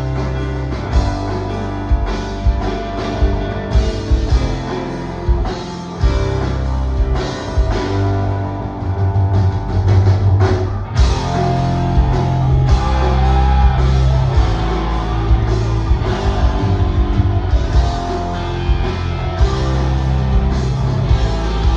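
A rock power trio playing loudly live: electric guitar, bass guitar and drum kit, with the drums hitting steadily.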